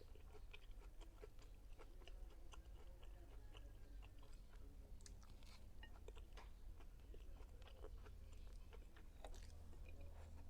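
A person chewing food close to the microphone, quiet, with many small irregular wet mouth clicks and smacks.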